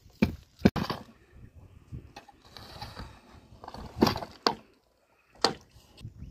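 Irregular knocks and clatters, several sharp strikes a second or so apart, over faint background noise.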